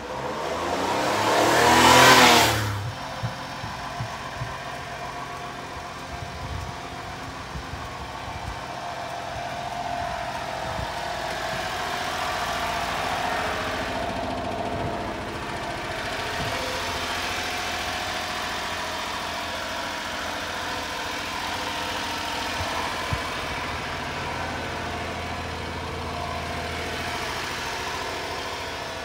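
1993 Honda Acty truck's small three-cylinder engine idling steadily. A loud rising rush of noise comes first and cuts off sharply about two and a half seconds in.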